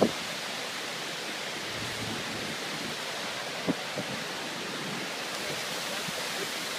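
Steady rushing noise of stormy weather, with two short knocks a little under four seconds in.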